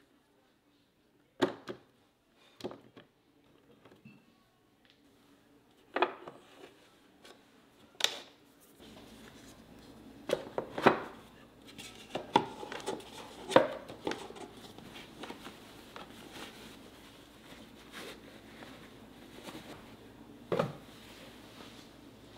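Scattered light wooden knocks and clicks as a two-tier wooden lunch box is handled, the loudest a few taps in the middle as its wooden lid is set on. A faint steady hiss comes in about a third of the way through.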